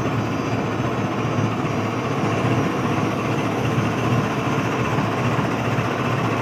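Diesel engine of a GE GEU40 diesel-electric locomotive idling while the locomotive stands, a steady even rumble.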